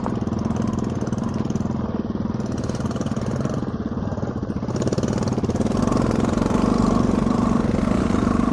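Motorcycle engine running at a steady, even speed, getting slightly louder about halfway through.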